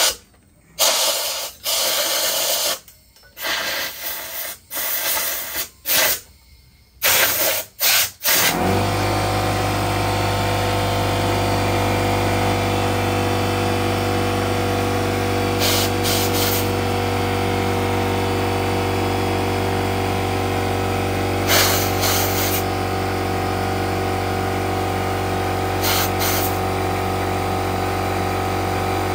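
Compressed-air blow gun fired in short hissing blasts, blowing dust out of drilled holes. About eight seconds in, the Porter-Cable pancake air compressor's motor kicks on and runs steadily to refill the tank, with a few more short air blasts over it.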